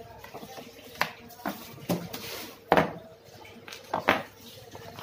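Handling noise from a speedometer kit's wiring harness: plastic connectors and wires clicking and clacking against the workbench, several sharp clicks spread through, with a short rustle of paper near the middle.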